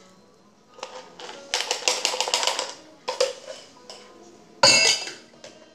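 Stainless-steel cocktail shaker tin and strainers being handled at the end of a double strain. About a second and a half in there is a quick rattle of ice in the tin, about eight strokes a second for roughly a second, then a few light metal clinks. Near the end comes a loud metallic clank that rings briefly.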